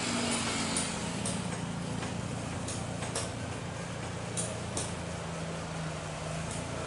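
Twin-engine widebody jet airliner at takeoff power on its takeoff roll, heard at a distance as a steady rushing noise with a low hum underneath and a few faint clicks.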